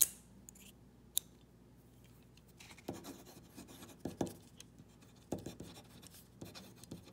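Two sharp clicks about a second apart, then a ballpoint pen writing on paper in short strokes about once a second as the newly fitted Rite in the Rain refill is tested.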